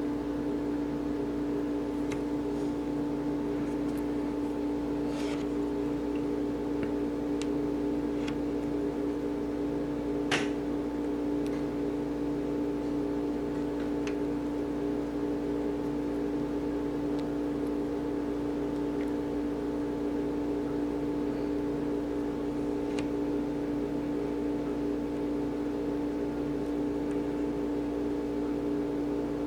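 Steady mechanical hum, like a fan or appliance in a small room, runs throughout. Over it come a few faint small clicks of plastic parts being handled, with one sharper click about ten seconds in.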